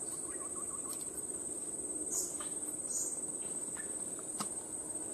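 Steady high-pitched insect trill, a continuous chorus that does not change. Two brief high chirps about two and three seconds in.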